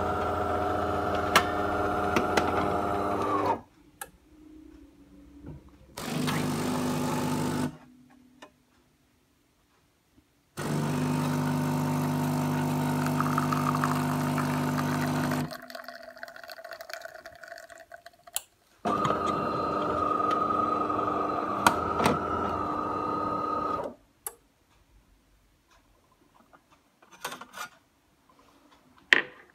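Automatic espresso machine working through its brewing cycle: a steady mechanical hum in four runs of a few seconds each, with quiet pauses between, as coffee pours from its twin spout into a cup. A few light clicks near the end.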